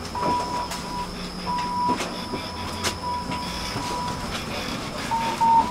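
Tram running on its rails, with a thin, high squeal from the wheels that comes and goes in stretches of uneven length, over a steady rumble with a few sharp clicks.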